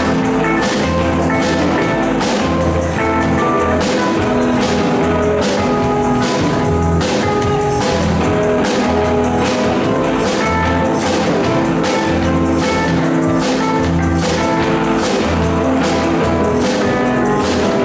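Live band playing an instrumental passage with no singing: electric guitar, electric upright bass, keyboard and a drum kit keeping a steady beat of about two strikes a second.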